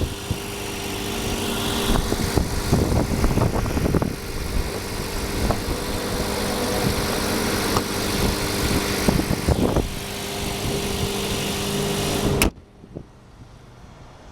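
2013 Ford Fusion Hybrid's 2.0-litre Atkinson-cycle inline-four running steadily at idle, having started on its own to recharge the hybrid battery. The sound cuts off suddenly near the end.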